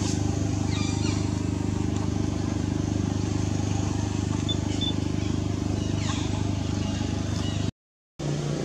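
A steady low engine hum, a motor running evenly, with a few faint high chirps over it. The sound cuts out for about half a second near the end.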